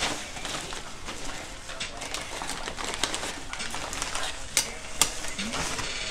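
Crinkling and rustling of a padded paper mailer as a coil of metal brake line is pulled out of it, with many sharp clicks and taps of the tubing and two louder taps near the end.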